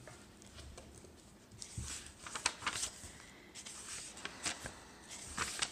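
Pages of a paperback book being turned and handled, giving several brief paper rustles.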